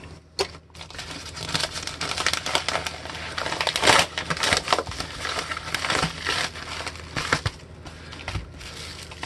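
A paper padded mailer is opened and the plastic packaging inside is handled: a dense crinkling and crackling that is loudest about four seconds in and eases off near the end.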